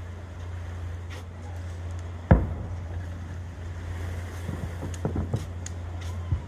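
Fireworks bursting: one sharp, loud boom about two seconds in, then a few softer thumps, over a steady low rumble.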